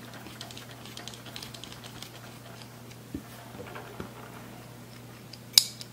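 Small metal clicks and light taps of a folding knife being handled and fitted together on a silicone work mat, a quick run of ticks at first and a few single knocks later, then one sharp, much louder click near the end.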